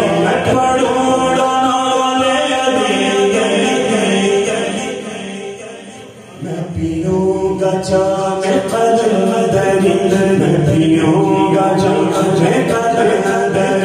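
A man's voice singing an Urdu devotional kalaam (a Muharram manqabat for Imam Husain) into a microphone, in long held chant-like notes. The voice fades out about five seconds in and comes back strongly a second or so later.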